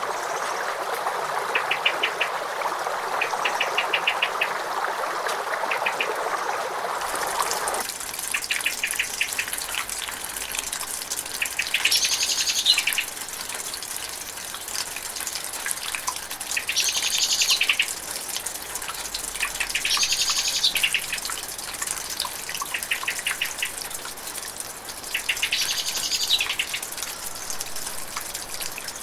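Running water of a stream or river with a bird trilling over it; about eight seconds in it changes abruptly to a thinner, higher hiss of water, over which a bird gives a call of about a second, several times a few seconds apart, with short trills between.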